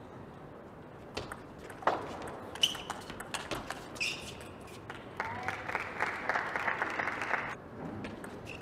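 Table tennis ball clicking sharply off bats and table in a short rally, with a couple of brief shoe squeaks. Then an audience applauds for about two seconds.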